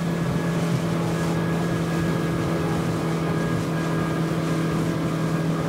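Motor of an inflatable boat running steadily under way at about 4200 rpm, a constant even hum over a steady hiss of water and wind.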